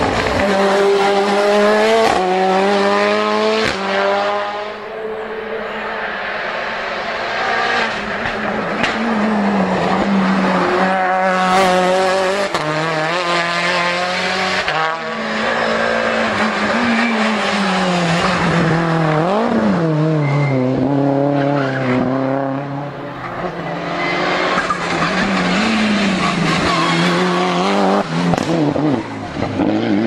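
Race-prepared touring cars driven flat out one after another, engines revving high and dropping at each quick gear change, with tyre squeal as they take the corners.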